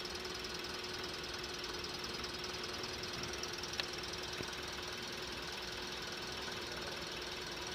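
Toyota Avanza engine idling steadily, with a single light click about four seconds in.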